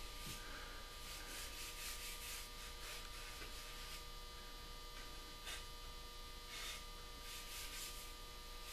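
Faint swishing strokes of bare hands rubbing oil finish into a maple rifle stock, over a steady electrical hum.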